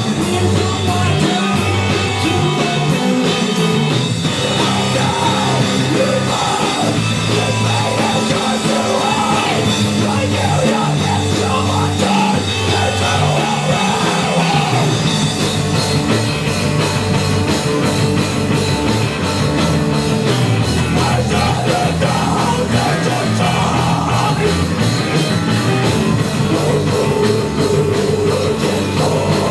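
Live rock band playing loud, full-band music, with a drum kit keeping a steady beat that grows more regular in the second half.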